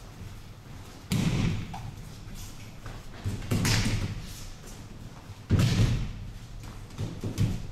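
Aikido partners' bodies slapping onto tatami mats as they take breakfalls from throws: a run of heavy thumps about every two seconds, each with a rustle of uniform cloth.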